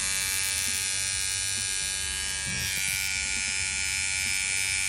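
Wahl cordless trimmer with its small shaver head fitted, running with a steady electric buzz. About halfway through its sound changes, taking on a higher whine, as the shaver head is held against the palm.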